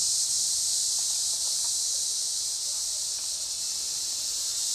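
Steady, high-pitched drone of insects calling in chorus.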